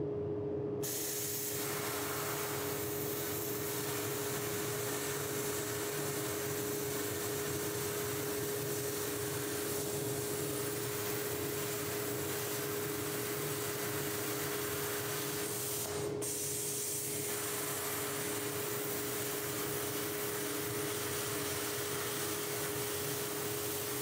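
BestArc BTC500XP plasma cutter turned up to its 50-amp maximum, cutting through half-inch plate. It makes a steady hiss of air and arc with a constant hum-like tone, filling in about a second in and wavering briefly once about two-thirds through.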